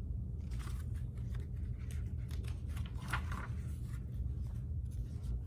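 Pages of a picture book being handled and turned: a few soft paper rustles and light crackles over a steady low hum.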